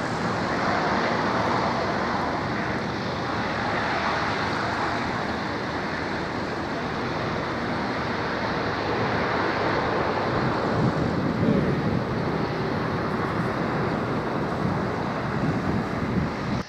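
Steady noise of a Dash 8 Q300 turboprop airliner's engines and propellers heard from a distance as it taxis and turns on the runway.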